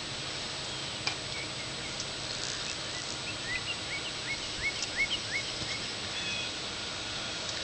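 A bird singing: a run of short, rising chirps repeated a few times a second, over steady low noise, with a faint click about a second in.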